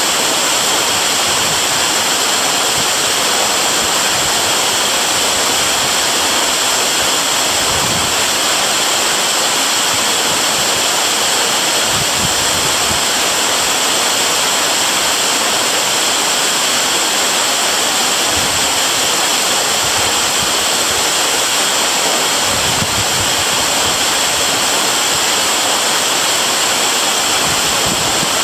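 Waterfall rushing in a steady, unbroken roar of falling water, its hiss strongest in the upper range, with a few soft low thumps in the water.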